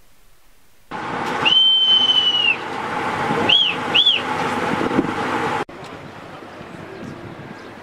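A boatswain's call (bosun's pipe) piping a visitor aboard a naval vessel: one long high note held for about a second, then two short rising-and-falling notes. It sounds over wind noise and a steady hum, and everything cuts off sharply about halfway through.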